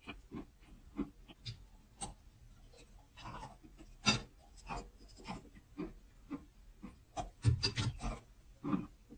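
Close-miked mouth sounds of eating soft, creamy cheesecake: wet lip smacks and sticky tongue clicks coming irregularly, with the loudest run of smacks near the end as she takes a bite.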